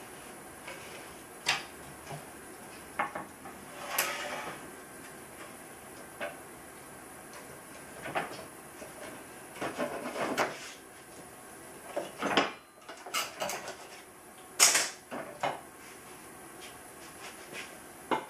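Irregular knocks, clicks and scrapes of a cherry-wood workpiece and hand tools being handled: the CNC-cut plaque being unscrewed from the machine and its holding tabs cut free.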